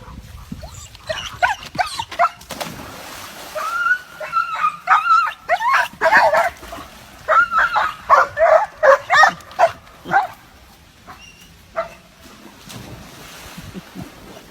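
A dog whining and yipping in runs of short high calls, in several groups with short pauses between.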